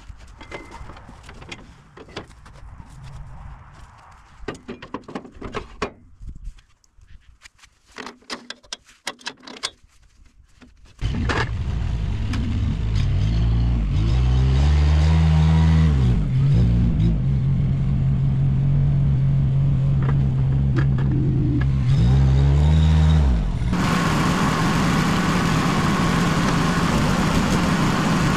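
Scattered knocks and clicks, then a loud engine powering a homemade hydraulic log splitter starts running steadily. Its pitch sags and recovers twice as the hydraulics take load, and near the end the sound grows louder and noisier.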